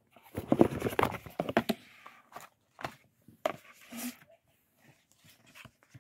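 Cardboard puzzle boxes and jigsaw pieces being handled: a dense run of rustles and knocks in the first couple of seconds, then scattered light taps.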